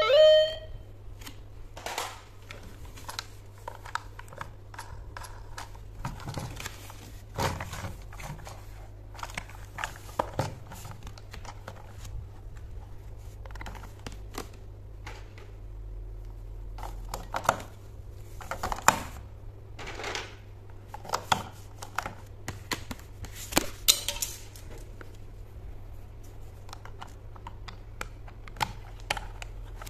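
Scattered plastic clicks, taps and light rattles as a battery-operated Thomas the Tank Engine toy piano is handled: its battery compartment opened, batteries fitted and the cover clipped back on.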